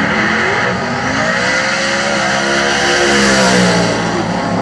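Drag race car launching and accelerating hard down the strip. The engine note climbs for a couple of seconds and then drops away.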